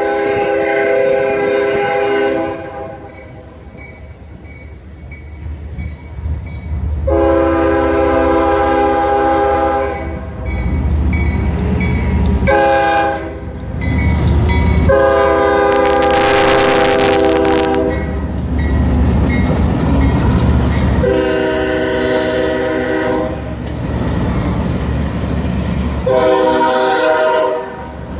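CSX diesel locomotive air horn sounding the grade-crossing signal of long, long, short, long, followed by two more long blasts, over the low rumble of the passing locomotives. A crossing bell dings steadily underneath.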